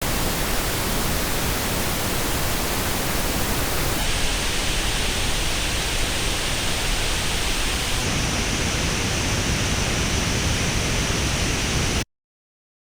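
Pink noise test signal, a steady full-range hiss, in three back-to-back stretches of about four seconds each. Its tone colour changes abruptly at each switch as it is reproduced by different earphones (Apple AirPods Pro 2 and Apple EarPods) and picked up by an artificial ear simulator. It cuts off sharply about 12 seconds in.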